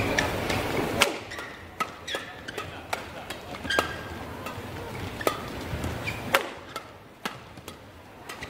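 Badminton rackets striking the shuttlecock in a fast doubles rally: a quick, irregular string of sharp smacks, roughly one or two a second.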